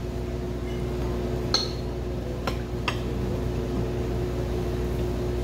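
Steady machine hum in a restaurant dining room, with a few light clinks of tableware during eating: about one and a half, two and a half and three seconds in.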